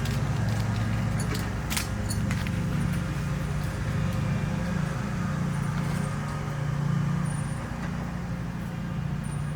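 Steady low hum, with a few light clicks in the first couple of seconds as the door-latch rod and parts are handled inside the truck door.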